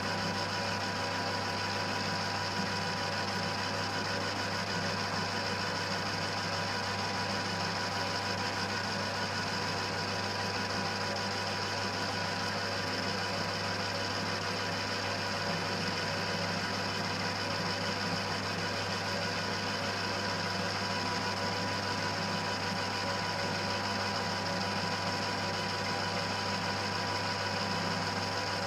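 1940s Colchester lathe running steadily, its motor and spindle giving an even hum and whir with no change in speed.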